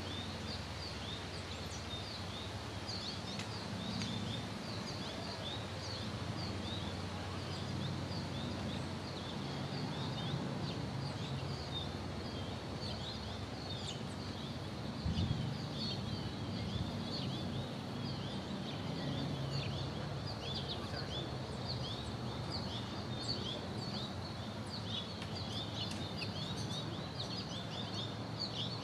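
Outdoor garden ambience: small birds chirping in quick, high, scattered calls over a steady low background rumble, with a brief low bump about halfway through.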